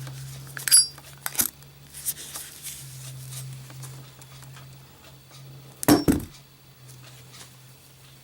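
Metal Zippo lighter being drop-tested: a few light metallic clicks and clinks in the first two seconds, then a louder metallic clatter about six seconds in.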